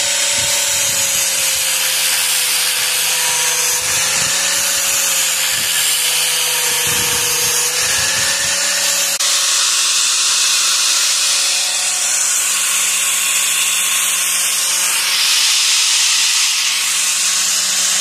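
Handheld angle grinder running with its disc grinding the edge of a steel lawnmower blade; the motor's whine sags in pitch a couple of times as the disc bites in.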